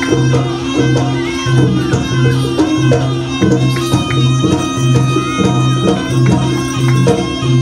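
Traditional East Javanese jaranan music: drums and struck percussion keeping a steady repeating beat under sustained pitched instrument tones.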